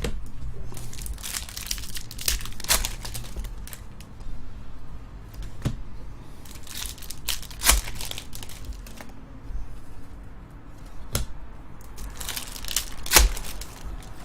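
Trading-card pack wrappers being torn open and crinkled, in three bursts of crackling with sharp snaps, the loudest snap near the end.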